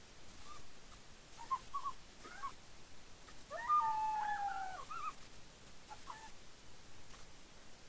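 Goats bleating: a few short, high calls, then one long, level bleat about three and a half seconds in.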